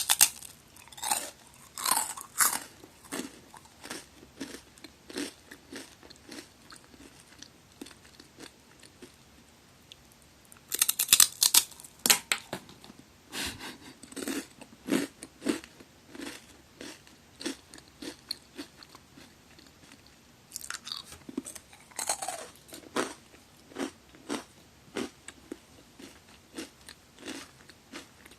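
Magari senbei, a curved Japanese cracker, being bitten and chewed up close: three loud crunching bites, one near the start, one about 11 seconds in and one about 22 seconds in, each followed by a run of crunchy chewing that grows softer.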